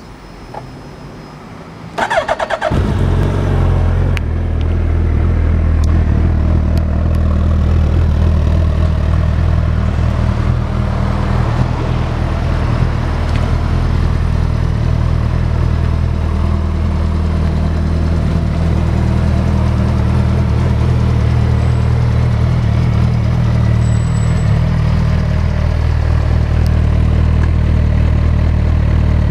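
Suzuki GSX1300R Hayabusa inline-four with a Yoshimura titanium dual-outlet exhaust, started on the electric starter about two seconds in. It catches at once and then idles steadily.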